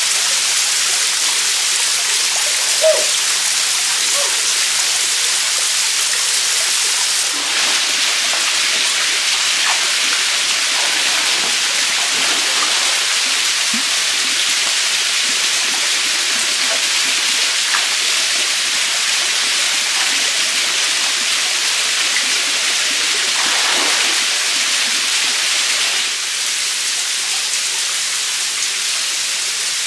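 Small forest stream running over rocks into a pool, a steady rushing hiss of flowing water, with a few faint light splashes.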